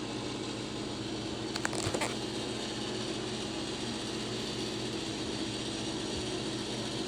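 Steady low hum and hiss with a couple of faint clicks about two seconds in.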